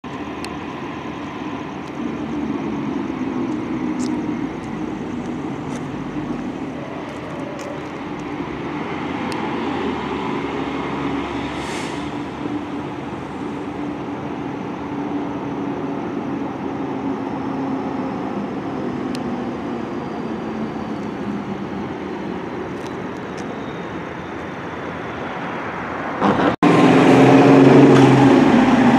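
Diesel engines of fire apparatus running: a steady drone as the ladder-and-engine pair approaches on the street, with a short hiss near the middle. About 26 seconds in it switches abruptly to a louder, closer Seagrave fire engine idling in its station bay.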